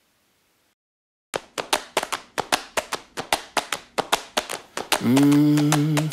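About a second of silence, then a music track starts with quick, evenly spaced clap-like percussion hits, about six a second. A held low note joins the hits near the end.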